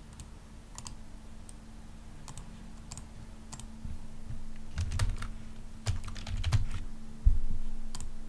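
Computer keyboard keys clicking irregularly, busier in the second half, with a few dull thumps, the loudest near the end, over a steady low hum.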